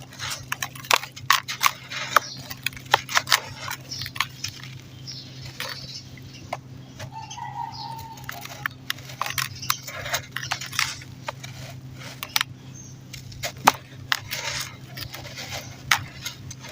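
Clumps of dirt being crushed and crumbling, an irregular run of sharp crunches and crackles, thicker in the first few seconds. A steady low hum runs beneath, and a short faint tone sounds about seven seconds in.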